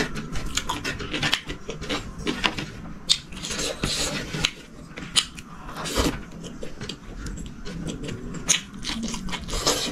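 Close eating noises: scattered clicks, rasps and scrapes of food being handled on a plate and eaten, with a denser patch of rasping a few seconds in and again near the end.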